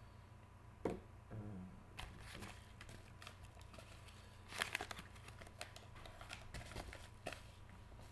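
Trading cards in plastic sleeves and holders being handled and shuffled: irregular rustling and crinkling of plastic with scattered light clicks. The busiest, loudest handling comes about halfway through.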